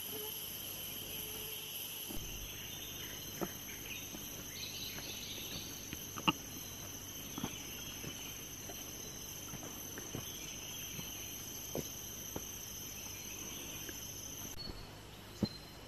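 Rainforest insects droning steadily in several high-pitched layers, with the highest layers cutting out near the end. Scattered light clicks and snaps sound over it.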